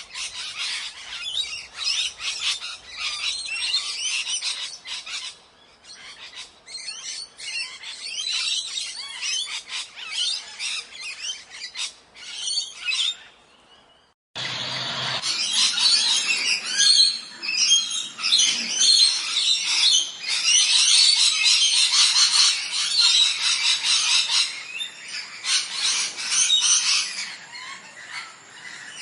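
Ringneck parrots chattering and squawking in rapid, shrill calls. There is a brief gap about halfway through, after which a louder, denser chorus of calls follows.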